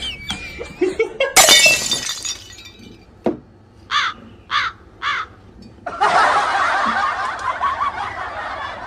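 A sudden crash, like something breaking, then three short, harsh, falling calls about half a second apart, followed by a few seconds of loud, dense noise.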